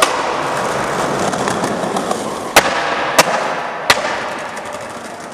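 Skateboard wheels rolling over a hard floor, with three sharp cracks of the board hitting the ground about two and a half, three and four seconds in.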